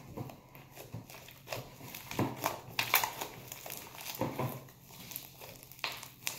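Fluffy slime being stretched and squeezed by hand, giving a run of irregular small pops and crackles.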